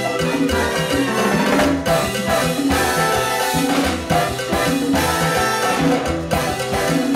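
Live salsa orchestra playing: congas and timbales over a repeating bass line, with piano and a trombone-and-trumpet horn section holding notes.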